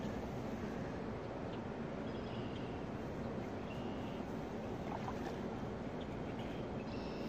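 Steady rushing noise of wind and river water, with a few faint, short, high chirps.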